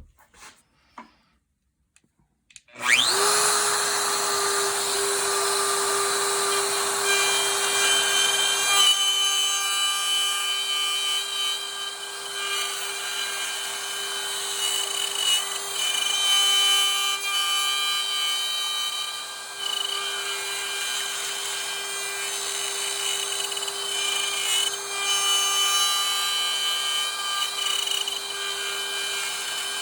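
DeWalt router switched on about three seconds in, its motor whining up to speed and then running steadily at a high pitch while cutting into the wood for a hinge mortise.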